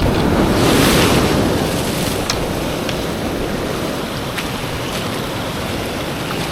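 Heavy ocean swell breaking and washing over a rock ledge: a continuous rush of whitewater that surges loudest about a second in, with a few faint clicks.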